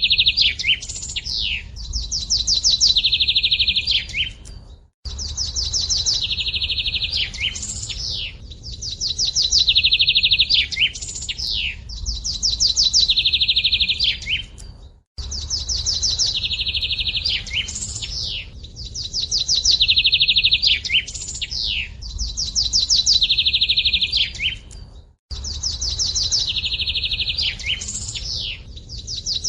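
A small songbird singing a high, rapid trilled phrase over and over, about every two and a half seconds. The sound cuts out completely for a moment three times, where the recording loops.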